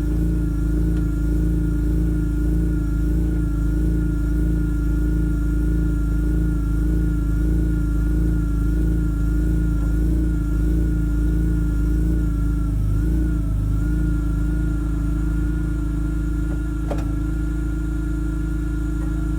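BMW E46 M3 convertible running steadily: a low hum with a steady, slightly wavering whine above it, and one sharp click about 17 seconds in.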